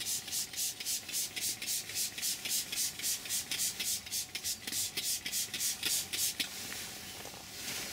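Trigger spray bottle of leather cleaner squeezed rapidly, about five short hissing sprays a second, misting cleaner over a leather car seat. The strokes stop about six seconds in, and a steadier hiss runs on for a second or so.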